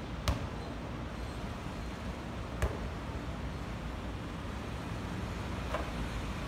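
Steady background noise of traffic around an open-air court, broken by three sharp knocks a few seconds apart from a basketball being handled and shot in a free throw.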